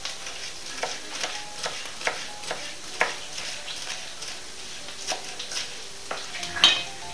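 Knife slicing bell peppers on a plastic cutting board: about a dozen sharp, irregular knocks of the blade on the board, the loudest near the end. Under them runs a steady faint sizzle of potatoes frying in a pan.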